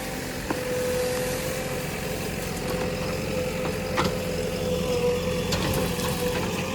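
JCB 3DX backhoe loader's diesel engine running steadily, with a steady whine held over it and a couple of sharp clicks.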